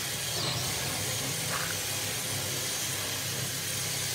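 Cordless drill running steadily under load as it bores out the lock in the top of an ATM, a constant motor whine with no break.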